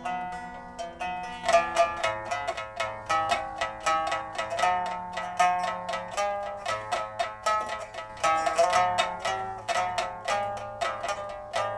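Plucked zither music: a quick stream of plucked, ringing notes, several a second, over a few lower sustained notes.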